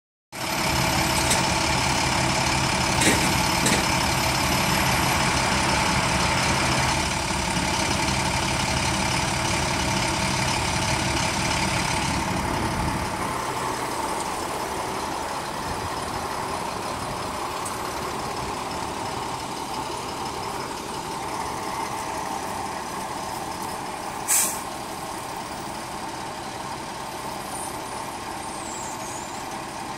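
Rollback flatbed truck's engine running at raised speed to drive the hydraulics while the deck tilts and slides back, then dropping to a lower, quieter run about halfway through. A short, sharp hiss of air comes late on.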